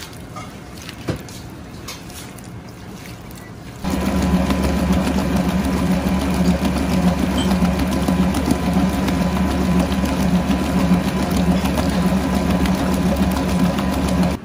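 Faint handling of raw peeled prawns in a steel bowl, with a few small clicks. About four seconds in, this gives way abruptly to the loud, steady hum of a commercial mixer's motor, its paddle beating prawn paste in a steel bowl.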